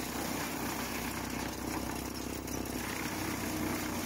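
Tractor-driven FARMI PROFI CH27 disc wood chipper running at work, blowing wood chips out of its discharge pipe: a steady machine drone with a constant hiss over it.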